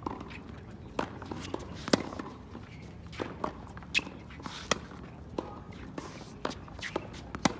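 Tennis balls struck by rackets in a baseline rally on a hard court: a run of sharp pops, the loudest about two seconds in, near the middle and near the end, with fainter hits and ball bounces between them.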